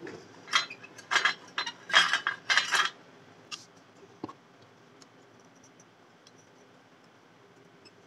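Needle-nose pliers and a soldering iron clinking and scraping on a circuit board while a capacitor is heated and pulled off: a quick run of sharp metallic clicks and scrapes in the first three seconds, then a couple of single ticks and quiet.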